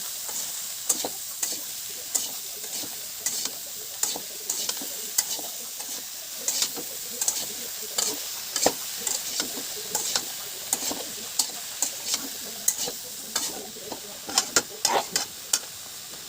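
Food sizzling in a frying pan, with repeated sharp clicks and scrapes of a utensil stirring it, bunched closer together near the end.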